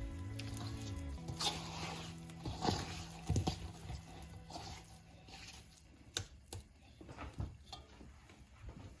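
Quiet background music with held low notes that fade away partway through, under a scattering of light clicks and taps from kitchen handling.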